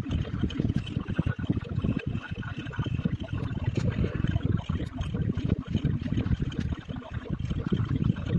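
Counting sound effects sped up many times over, running together into a dense, fast-fluttering low rumble with fine clicks scattered through it.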